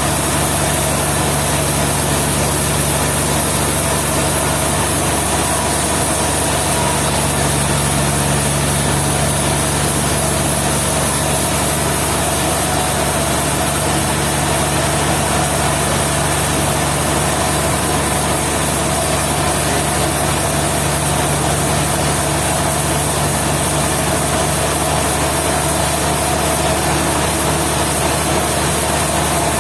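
A machine running steadily and loudly: a constant engine-like hum under an even hiss, with no change in speed or load.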